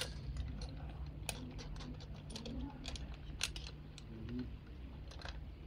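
Irregular metal clicks and clinks of rescue gear being handled at a well-rescue tripod over a manhole, over a steady low hum.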